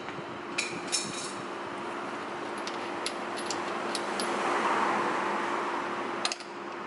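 A few light metallic clicks and clinks from hands working the A/C suction hose and its fittings, over a steady hum. A rush of noise swells up past the middle and stops abruptly with a click near the end.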